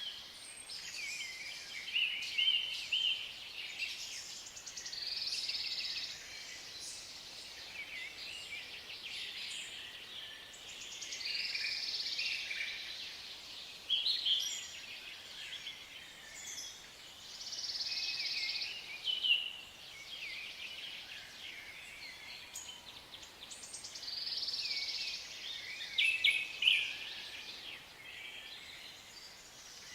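Forest ambience of several songbirds singing, overlapping chirps and trills over a faint steady background, with louder phrases every few seconds.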